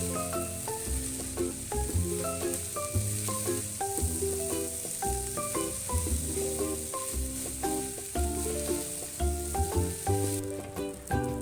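Food sizzling in hot oil in a frying pan, a steady hiss that stops near the end, under light instrumental background music.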